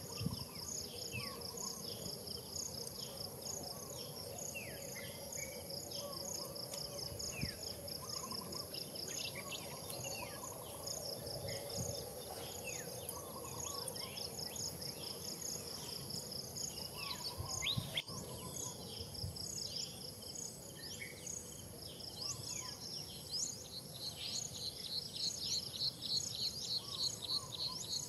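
Insects and birds: a steady high insect drone with a rapidly pulsing insect trill, which fades away mid-way and returns stronger near the end, and scattered short bird chirps.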